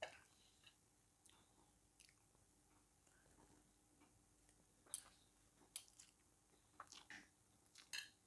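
Quiet close-up chewing of soft pasta. A handful of sharp clicks come in the second half, the loudest about five seconds in and near the end.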